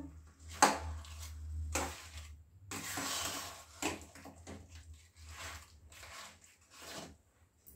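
Metal spatula stirring and scraping a thick mash of ground amla and jaggery pieces in a kadhai, in irregular strokes of a second or so.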